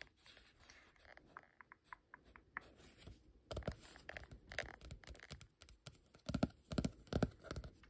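Fingertips tapping and rubbing on a paper drawing card in a quick, irregular run of light taps and soft scratches. Heavier, deeper taps come in the second half.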